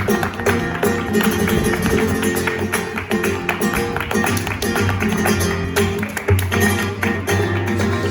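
Flamenco music led by fast plucked guitar, with many sharp percussive strokes.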